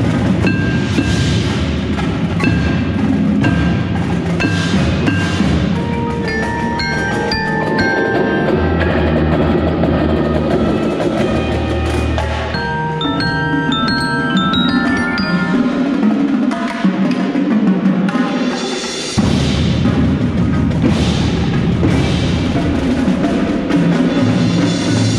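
Marching percussion ensemble playing a piece: xylophone and glockenspiel notes struck with mallets up close, over drumline snares, tenors and bass drums and low held tones. There is a short drop about three quarters of the way through, then a loud full-ensemble hit.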